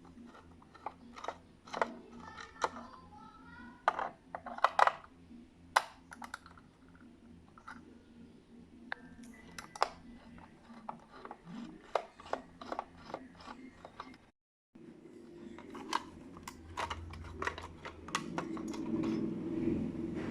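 Irregular small clicks and taps of plastic and metal parts being handled while an analog alarm clock is worked on. The sound drops out briefly about two-thirds of the way through, and a steadier low sound rises near the end.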